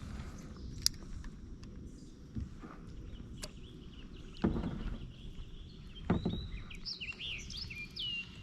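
A bird gives a quick series of short, gliding chirps in the last second and a half, over a steady low rumble. Two dull knocks come in the middle, with a few light clicks.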